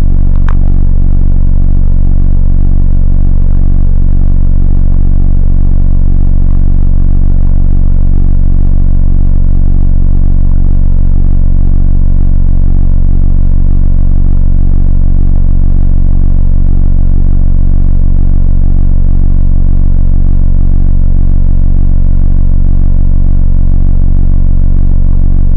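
Bus diesel engine idling steadily while the bus stands still, heard from inside the passenger cabin as a loud, even low drone. A brief click about half a second in.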